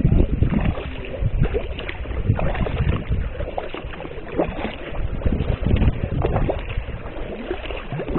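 Sea kayak paddle blades dipping and splashing through calm water with each stroke, the sound rising and falling every second or two, over wind rumbling on the microphone.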